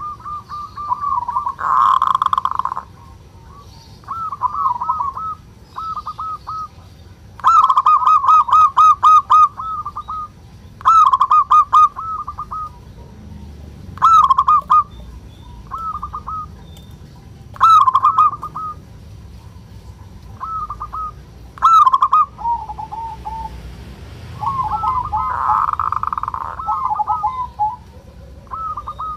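Zebra dove (perkutut) giving its 'ngerot' (kerot) call: phrases of rapid, bouncing cooing notes, repeated every few seconds. This is the call of a male in breeding arousal.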